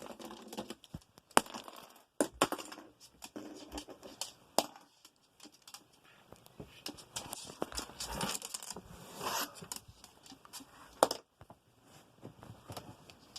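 A cockatoo handling and chewing at a plastic Rubik's cube: irregular sharp clicks and knocks, with a stretch of scraping and crinkling a little past the middle.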